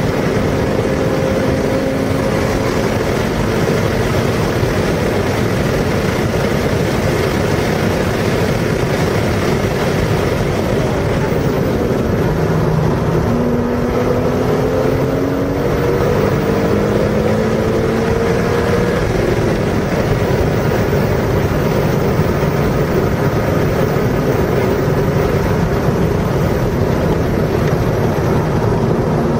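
Car engine at speed on a race track, rising in pitch several times as it accelerates through the gears, under a heavy, steady rush of wind and road noise.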